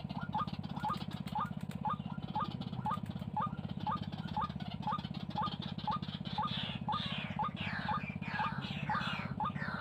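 White-breasted waterhen calls: a short rising note repeated about twice a second, joined about six and a half seconds in by louder, harsher falling calls. A steady low hum runs underneath.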